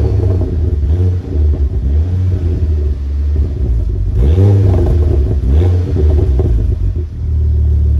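Ford Focus RS Mk2's turbocharged 2.5-litre five-cylinder engine idling through an aftermarket exhaust, heard at the tailpipes. About halfway through the throttle is blipped twice, the revs rising briefly and falling back to a steady idle.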